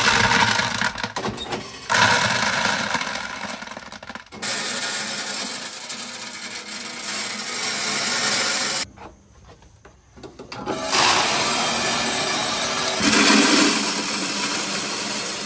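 Hardwood smoker pellets pouring in a stream into a pellet grill's hopper, a dense rattling rush of many small pellets. It comes as two long pours with a pause of about two seconds just past the middle.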